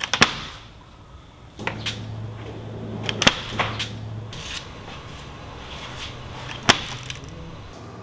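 Several sharp snaps and knocks, the loudest about a quarter second in, around three seconds in and near the end, as a homemade light-sensor bird trap is triggered and its spring-loaded net frame snaps down onto the wooden board, with a metal blade knocking against the cardboard sensor box. A faint low hum runs for a couple of seconds in the middle.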